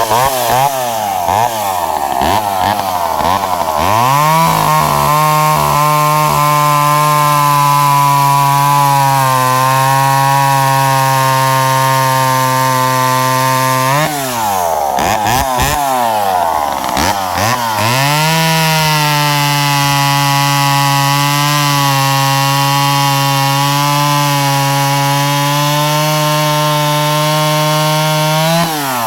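McCulloch Pro Mac 10-10S two-stroke chainsaw running at high revs, cutting into a log round. The engine speed dips sharply and climbs back about halfway through, then drops again near the end.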